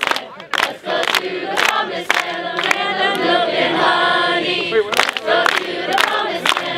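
A group of young men and women singing together while clapping in time, about two claps a second. Partway through, the clapping stops for a second or two while the voices hold longer notes, then it resumes.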